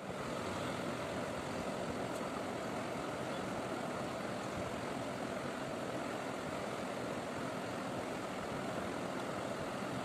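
Steady background noise: an even hiss with no distinct events.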